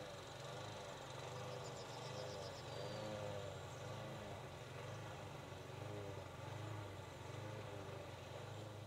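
A steady low hum like an engine idling at a distance, with wavering tones above it. A short, high, rapid trill comes about a second and a half in.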